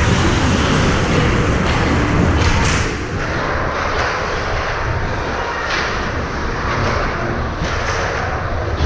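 Ice hockey game play in a rink: a steady rumble and scrape of play with several sharp knocks of sticks, puck or players against the boards.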